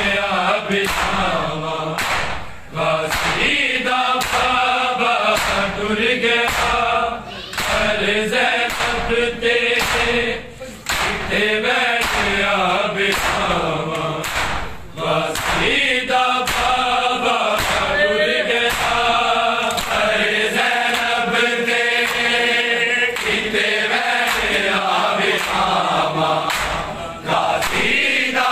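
Group of men chanting a Shia noha in chorus, with the steady beat of hands striking bare chests in matam about once every second.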